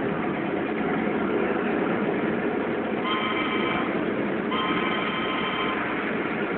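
Model train's horn sounding twice, a short blast about three seconds in and a longer one a second later, over the steady rumble of model trains running on the layout's track.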